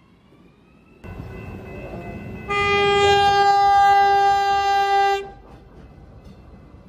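A train horn sounding one long steady blast of nearly three seconds, starting a couple of seconds in and cutting off sharply, over the rumble of the train running.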